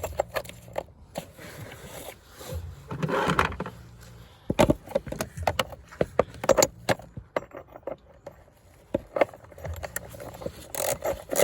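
Metal hand tools clinking and knocking irregularly, with a short scrape, as a ratchet, extension bar and deep socket are handled and fitted onto the battery hold-down bolt. The loudest knock comes about halfway through, and a quick run of clicks comes near the end.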